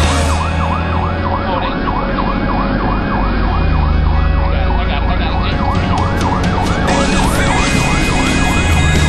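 Fire-rescue truck's electronic siren in a fast yelp, rising and falling about three times a second, heard from inside the vehicle's cab over the low rumble of the engine and road.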